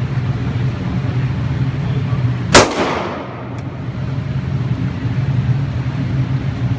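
A single handgun shot about two and a half seconds in, sharp and loud with a short echo tail, over a steady low hum.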